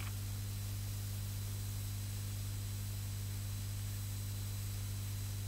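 Steady low electrical hum and hiss of an old 1960s television film soundtrack, with no other sound.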